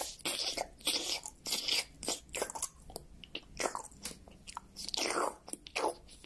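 Cat lapping water from an open glass fish tank: a quick run of wet tongue laps, about three a second.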